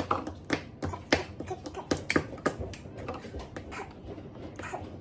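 Irregular light clicks and knocks of kitchen items being handled, several a second, as milk is measured out for a dough.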